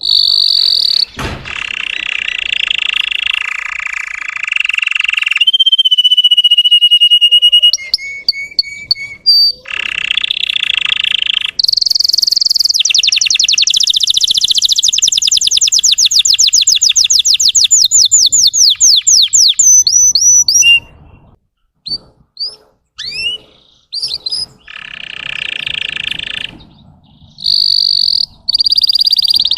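Russian canary singing a long, varied song of buzzy rolling trills, rattles and whistled gliding notes. In the middle it runs a fast series of rising chirps at about seven a second, then gives a few short scattered notes before the trilling resumes.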